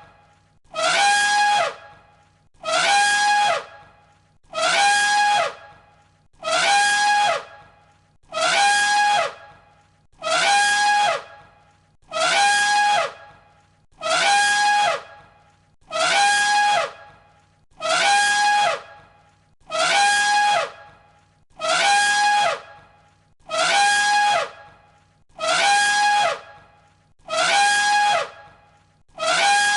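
Elephant trumpeting: the same short call, about a second long, repeated at even spacing about every two seconds. Each call opens with a brief downward slide, then holds a steady pitch.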